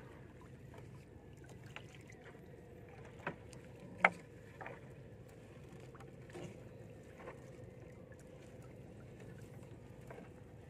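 Gill net being hauled into a small outrigger boat: scattered clicks and knocks as the net and its floats and sinkers land in the hull, the sharpest about four seconds in, over a faint steady low hum.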